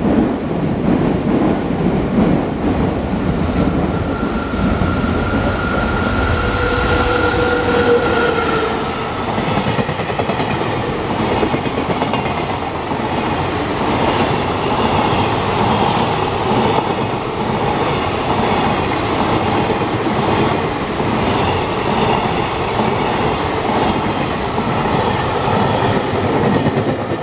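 Train running past on the tracks, its wheels clattering over the rail joints, with a steady tone held from about four to nine seconds in.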